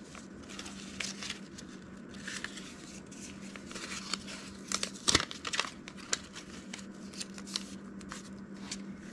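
Paper money and a clear vinyl binder cash pocket rustling and crinkling as bills are handled and slipped into the pocket. Scattered sharp crackles come throughout, the loudest about five seconds in.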